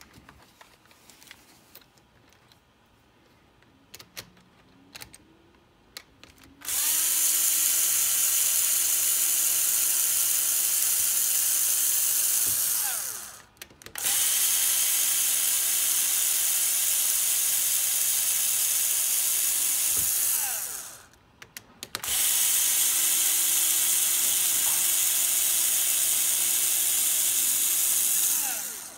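Cordless electric screwdriver with a 2.0 mm hex bit running on the screws of an RC crawler's plastic C-hub, in three long runs, each spinning up to a steady whine and winding down.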